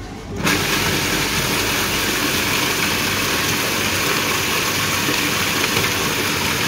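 Electric food processor switched on about half a second in and running steadily, blending sourdough breadcrumbs with olive oil, garlic, anchovies and capers into a paste while its lid is held down by hand.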